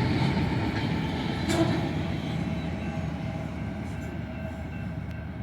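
Northbound autorack freight train rolling past, a steady rumble of wheels on rail that fades as the train moves on. There is a short sharp sound about one and a half seconds in.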